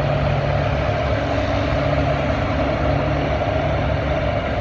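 Farm stock pulling tractor's engine running steadily and loud as it pulls the sled down the track.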